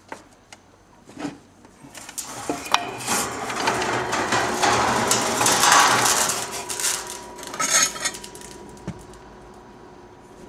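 A hand file scraping over the flat of a steel band saw blade at its welded joint, taking off the weld line. A few light metallic clicks come first; the filing starts about two seconds in, is loudest in the middle and dies away after about eight seconds.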